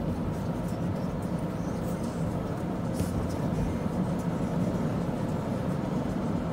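Car driving at road speed, heard from inside the cabin: a steady low hum of engine and tyre road noise.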